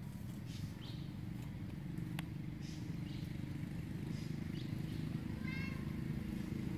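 Scattered short, high-pitched animal squeaks and chirps, with one longer wavering call about five and a half seconds in, over a steady low background rumble.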